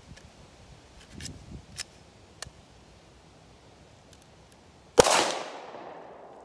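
A single 9mm shot from a sand-fouled Glock 48 pistol about five seconds in, with a ringing tail that fades over a second or so. A few light clicks of handling come before it.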